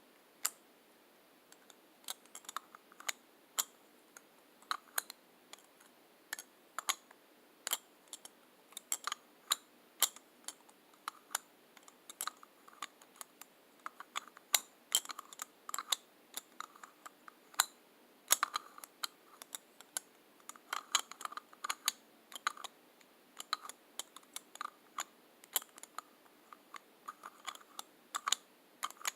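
Lipstick tubes and caps handled close to the microphone for ASMR: irregular sharp clicks and taps, at times several a second, with quiet gaps between.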